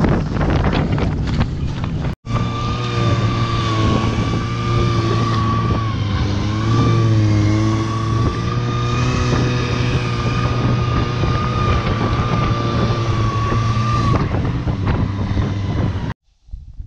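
Buran snowmobile's two-stroke engine running steadily while towing a sled, heard from the sled behind it, a low drone with a steady whine on top. The sound drops out briefly about two seconds in and cuts off suddenly near the end.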